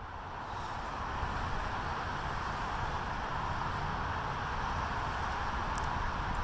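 Steady outdoor background noise, wind rumbling on a phone microphone over a traffic hum, fading in over the first second and then holding level.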